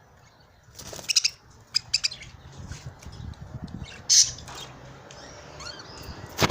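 Budgerigars chirping in short, scattered calls, the loudest just over four seconds in.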